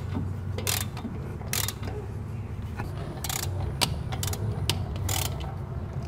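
Ratchet wrench clicking in short, irregular bursts, working the bolts on a disc brake caliper, over a steady low hum.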